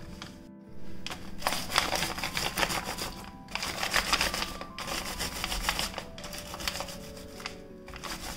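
Steel rolling pin rolled back and forth over Oreo biscuits in a plastic bag, the bag crinkling and the cookies crunching as they are crushed into crumbs. It comes in a run of strokes, each about a second long, with short breaks between them.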